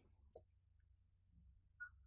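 Near silence: room tone with a couple of faint computer mouse clicks.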